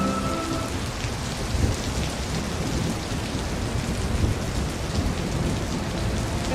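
Steady rain falling and splashing into a puddle, with a low rumble of distant thunder underneath.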